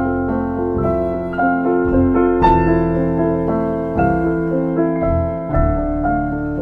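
Background piano music: held keyboard chords over low bass notes.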